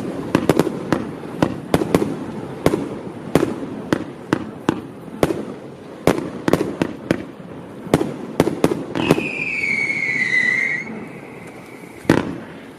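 Single-ignition firework barrage firing a rapid run of shots and bursts, about two or three bangs a second. About nine seconds in a whistle sounds for roughly two seconds, falling slightly in pitch. After that the shots thin out to one last loud bang near the end.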